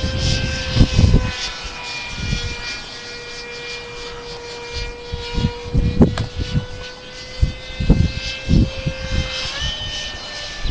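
Electric ducted-fan whine of a Hobby Lobby F9F Panther RC jet in flight, steady in pitch, then stepping up in pitch about nine and a half seconds in as the throttle is advanced. Gusts of wind thump against the microphone throughout.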